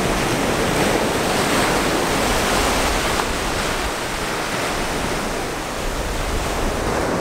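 Ocean surf breaking and washing up the shallows: a steady rushing hiss of waves.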